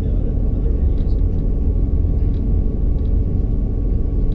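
Diesel multiple unit running, heard from inside the carriage as a steady low rumble, with a few faint clicks.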